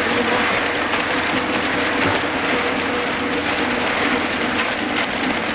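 Wet concrete with coarse gravel sliding out of a turning tractor-mounted cement mixer drum and falling into a trench: a steady gritty rush, with a steady hum from the tractor driving the mixer underneath.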